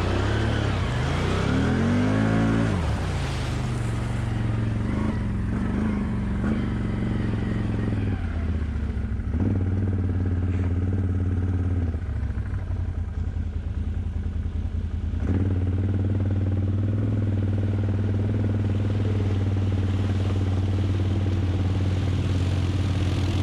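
ATV engine running while riding, revving up and down in the first few seconds, then running steadily with a few throttle changes, dropping off about 12 s in and picking up again about 15 s in.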